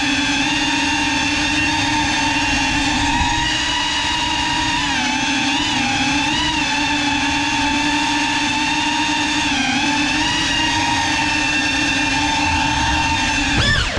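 A GEPRC Cinelog 35 cinewhoop drone's brushless motors and ducted propellers whining steadily in flight, heard up close from its onboard GoPro. The pitch wavers briefly twice as the throttle changes, and swells just at the very end.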